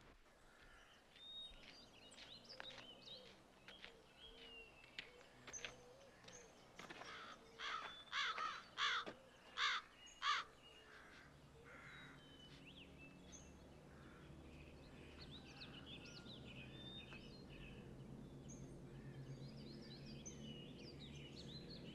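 Outdoor ambience of birds chirping, with a run of about five louder calls around the middle. A low, steady rumble builds up through the second half.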